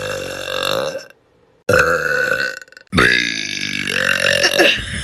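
A person burping long and loud, three times in quick succession. The first burp ends about a second in, the second lasts about a second, and the third is the longest.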